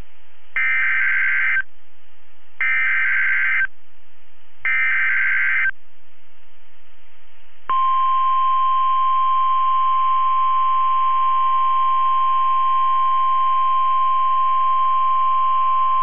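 NOAA Weather Radio Emergency Alert System signal: three one-second pulses of SAME digital header tones, a second apart, then a steady 1050 Hz warning alarm tone that sets in about eight seconds in. It marks the start of a new warning message.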